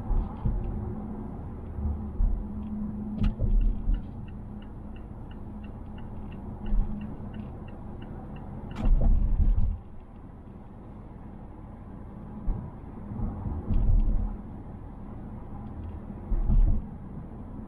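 Cabin road noise inside a moving 2020 Mazda Atenza (Mazda6) 2.5L: a steady low rumble with repeated thumps as the car goes over bumps, and sharp knocks at about three and nine seconds in. These are the interior rattles the car makes whenever its body is jolted. A faint regular ticking, about two or three a second, runs for a few seconds in the middle.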